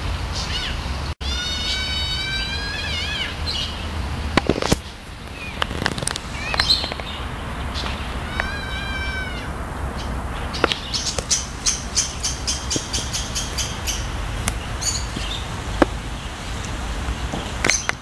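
Birds calling in an aviary: a drawn-out call of about two seconds that wavers in pitch at its end, then a shorter one about eight seconds in. From about ten seconds in comes a quick run of high chirps, roughly four a second, over a steady low rumble.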